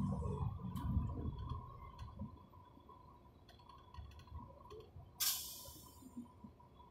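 A bus's low running rumble dies away as it slows to a stop. About five seconds in comes a sudden burst of compressed-air hiss from the bus's pneumatic system, fading out in under a second. A faint steady whine lasts throughout.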